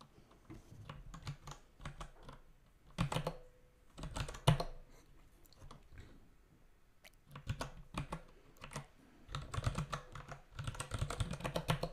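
Typing on a computer keyboard: two short bursts of keystrokes, then a longer run of typing through the second half.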